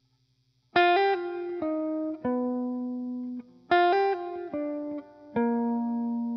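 Music: a short falling phrase of four plucked-string notes, starting about a second in and played again about three seconds later.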